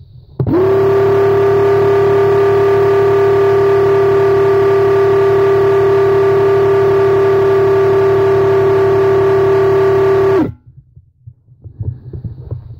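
Graco X-Force HD cordless handheld airless sprayer running while spraying polyurethane top coat: a loud, steady buzz from its motor-driven pump over the hiss of paint atomising at the tip. It starts about half a second in and cuts off sharply about ten seconds later.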